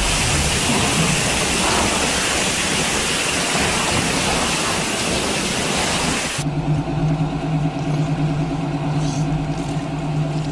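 Toilet flushing: a loud rush of water for about six seconds that cuts off abruptly, followed by the steady hum of the cistern refilling.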